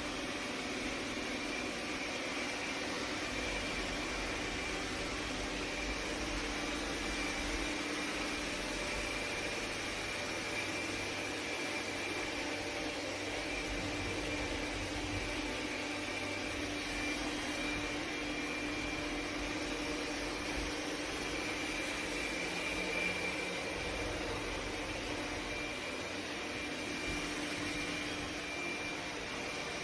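MOVA S10 Plus robot vacuum running steadily, its suction motor making an even rushing hum with a thin high whine over it.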